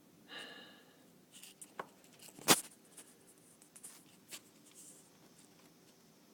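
Handling noise on a phone: a brief squeak just after the start, then scattered clicks and rubbing, the loudest a single sharp click about two and a half seconds in.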